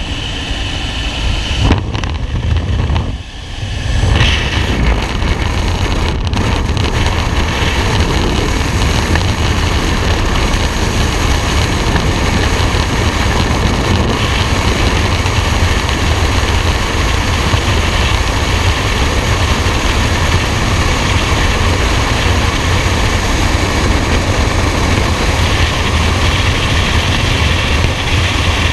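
A large engine running steadily with a deep, even rumble. The sound drops briefly about three seconds in, then holds steady.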